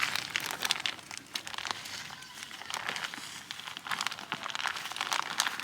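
Plastic bag of Sika PostFix two-part expanding foam crinkling and crackling irregularly as it is handled and the foam is squeezed out into the post hole.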